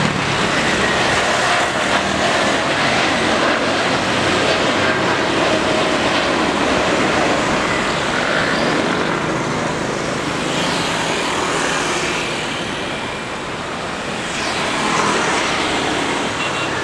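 Twin jet engines of a Boeing 787-10 Dreamliner at takeoff thrust as it climbs away after lift-off: a loud, steady jet rumble that dips slightly about thirteen seconds in.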